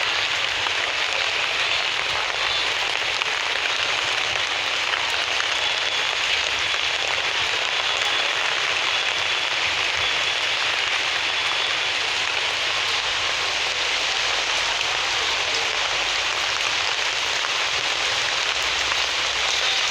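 Steady rain falling, a dense even hiss of drops that holds at one level throughout.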